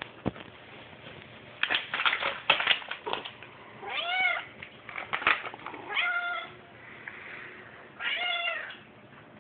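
A domestic cat meows three times, about two seconds apart, begging for treats; the first call rises then falls. Before and between the meows, a plastic cat-treat bag crinkles as it is handled.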